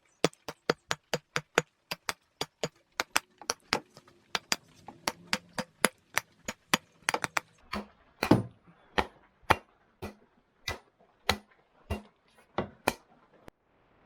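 Rubber mallet striking an old True Temper axe's wooden handle again and again to drive the head off. Quick blows about three a second, slowing to one or two a second in the second half, where a few land harder; the hammering stops shortly before the end.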